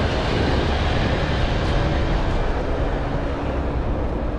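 Jeep driving along a dirt and snow trail: a steady rumble of engine and tyres, with a faint engine tone rising slightly near the end.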